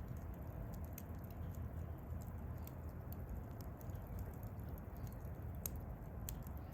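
Wood fire burning with a steady low rumble, broken by a few sharp crackles and pops from the burning wood, the loudest two near the end.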